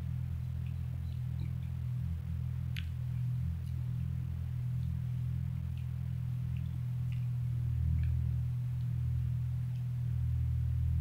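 A steady low hum, with faint scattered small clicks from eating: fingers picking at fried banana fritters on a plate, and chewing.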